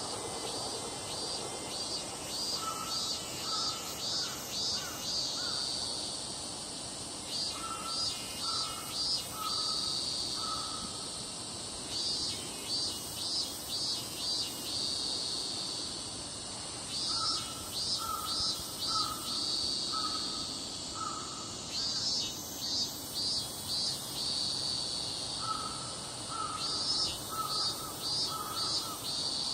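Outdoor animal chorus: a steady high-pitched insect trill, with a pulsed call repeating in phrases of a few seconds each, about five times.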